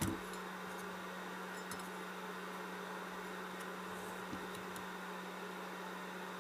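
Steady hum and hiss of a running blower, with a click at the start and a couple of faint taps from the amplifier's aluminium case being handled.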